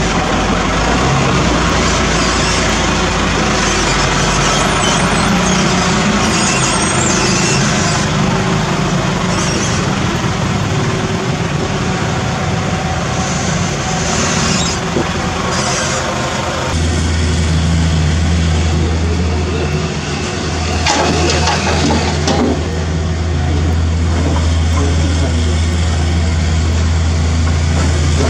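Diesel engines of a dump truck and a mini excavator running while debris is loaded. About 17 s in, the sound turns to a steady low engine hum close by, with a brief clatter of debris a few seconds later.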